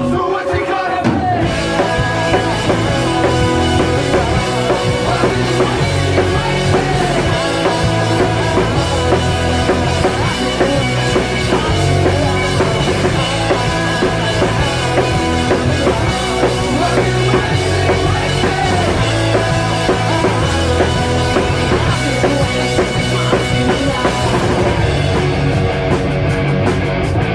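A rock band playing a song with drum kit and electric guitar.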